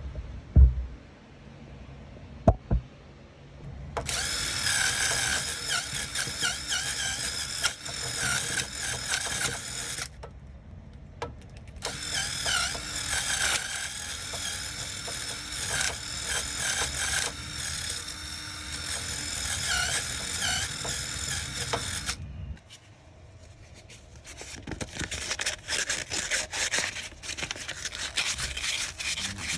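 Handheld power tool running in two long bursts, its pitch wavering as it works under load, after a couple of sharp knocks; near the end comes a run of rapid clicking.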